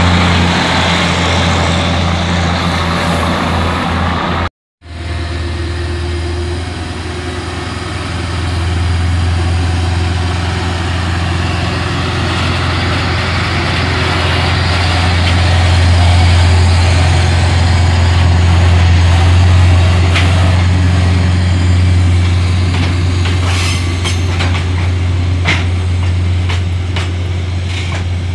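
A diesel railcar set rolls past close by with a loud rumble and a steady engine hum, and the sound cuts off abruptly after about four and a half seconds. Then a diesel track-maintenance locomotive runs steadily, swelling louder in the middle as it pulls a string of ballast hopper wagons. Sharp clicks of wheels on the rails come near the end.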